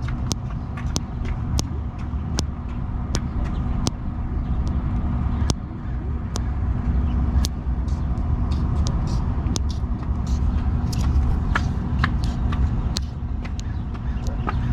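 Sharp clicks and pops from a thumb being worked, irregular, about two or three a second, over a steady low rumble.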